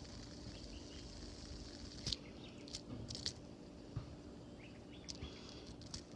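Faint handling noise: a scattering of light, sharp clicks and taps, starting about two seconds in, over a steady low hum.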